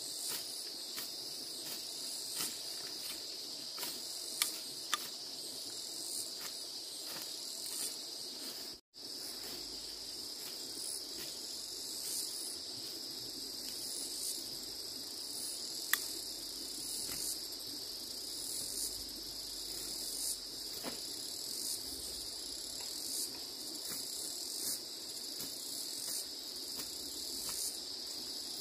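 Steady high-pitched insect chorus, a constant trill with even pulsing, with a few faint sharp clicks. The sound cuts out for an instant about nine seconds in.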